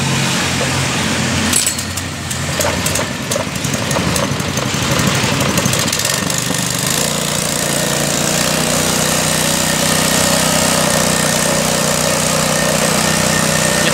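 Small single-cylinder four-stroke engine (Matsumoto MGX 100, 3.5 hp) of a 1.5-inch portable water pump running, with a few clicks as its controls are worked. About seven seconds in, the engine note changes and it settles into a steadier, stronger run as the throttle is adjusted.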